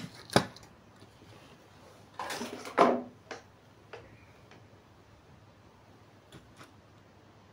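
Sharp clicks and a brief scraping rustle of small tools against a circuit board, then a few faint ticks, as rectifier diodes are being removed from a power-supply board.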